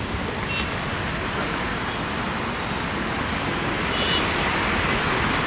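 Steady rumble of vehicle noise, with two brief faint high tones, one about half a second in and one about four seconds in.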